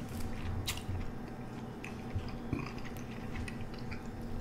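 A person chewing food with the mouth closed, with soft wet clicks. Near the end, fingers pick through food in a glass dish.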